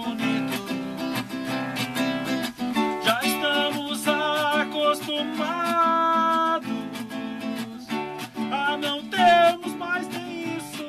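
A man singing while strumming chords on an acoustic guitar, holding a long sung note about halfway through.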